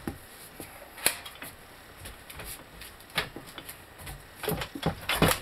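Scattered metallic clicks and knocks of a bench vise and its parts being handled and repositioned: a sharp knock about a second in, another around three seconds, and a quick run of knocks near the end.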